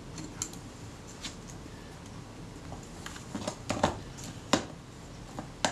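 Small handling noises of a metal camera body on a workbench: a scatter of light clicks and taps as fingers press the leatherette down and the camera is turned over on the mat, with a sharper click near the end.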